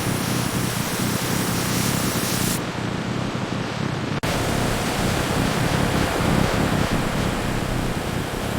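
Steady rushing noise with no clear rhythm or tone. About two and a half seconds in, the hiss abruptly loses its top end, and it returns after a brief dip about four seconds in.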